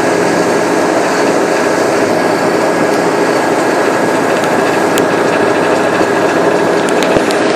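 A ferry's engines running steadily under way, heard on deck as a loud, even drone with steady tones through it.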